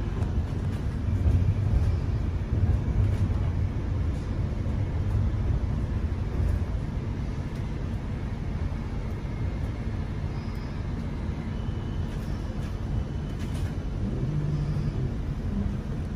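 Passenger cabin of a West Midlands Metro tram on the move: steady low rumble of the wheels and running gear on the rails, with faint ticks. A brief low hum comes in near the end as the tram draws into a stop.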